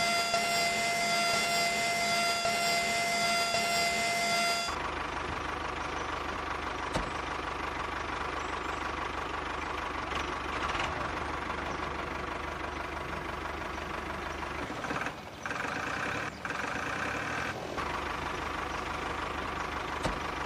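Small electric motor of a homemade toy tractor running steadily. It gives a clear, even whine for about five seconds, then changes to a rougher, noisier running sound with a low hum, briefly dipping twice near the end.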